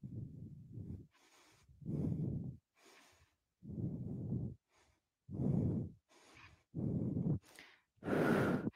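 A woman's heavy breathing from exertion, picked up close by a headset microphone: six breaths in a steady rhythm, about one every second and a half.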